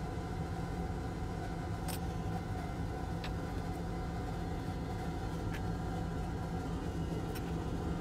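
Steady mechanical hum of a fan-like machine running, with a few faint ticks as a hobby blade scrapes the traces of a circuit board.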